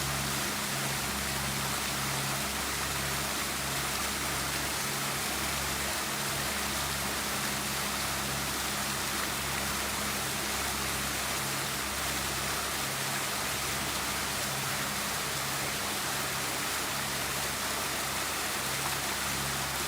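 Garden water fountain splashing steadily, an even rushing patter of falling water.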